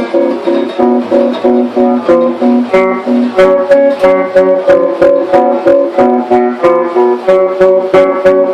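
Guitar strummed in a steady rhythm, about three strokes a second, repeating the same few chords.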